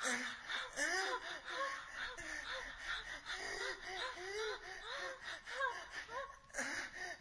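High-pitched laughter: a rapid string of short rising-and-falling notes, breaking off briefly about six and a half seconds in.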